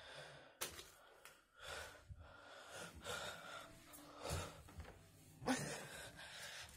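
Soft breathing and handling noise from a phone carried while walking, in a string of soft noisy swells about a second apart, with one sharp tick about half a second in.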